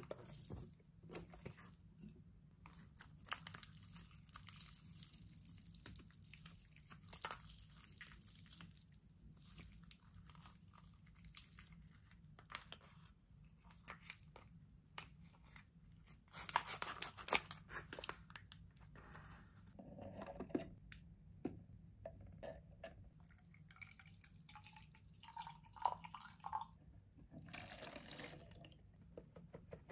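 Purple toy slime being squeezed, stretched and pulled apart by hand, giving many small irregular sticky clicks and squelching pops. Near the end, water is poured into a plastic flask.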